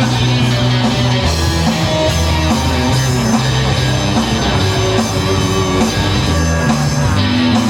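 Rock band playing: guitar and drum kit over held low notes that change pitch every second or so.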